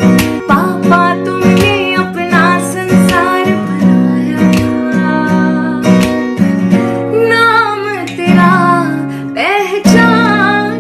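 A song ringtone: plucked and strummed guitar under a sung melody line.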